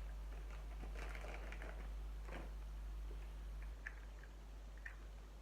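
Faint rustling and small clicks of blind-bag packaging and plastic toy figures being handled, over a steady low hum that drops about four seconds in.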